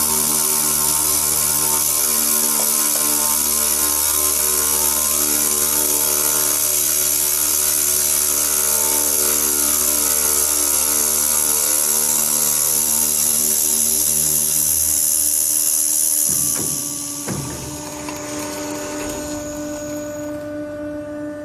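Automatic circular cold saw cutting steel bar: a loud steady high hiss over the whine of the machine's motor and gearing. About sixteen seconds in the hiss stops with a couple of clunks, and the machine runs on with a quieter steady hum.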